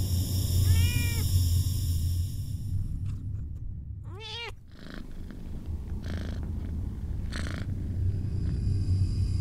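Domestic cat purring steadily, with a brief meow about a second in and another, louder meow about four seconds in.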